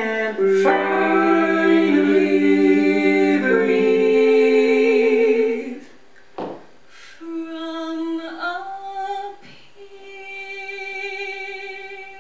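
Mixed male and female vocal ensemble singing a sustained harmonised chord in several parts, which cuts off about six seconds in. A single voice then sings softer held notes, one sliding up in pitch, at the close of the number.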